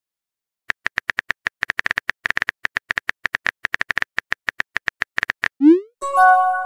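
Rapid phone-keyboard typing clicks from a texting-chat app, several a second. About five and a half seconds in, a short rising swoosh and a brief electronic chime of several held tones mark the message being sent, and the typing clicks start again near the end.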